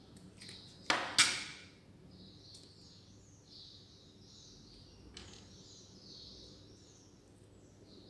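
Two sharp crackling scrapes close together about a second in, from hands working the stripped end of a coaxial cable and its foil shield, then a lighter scrape a few seconds later.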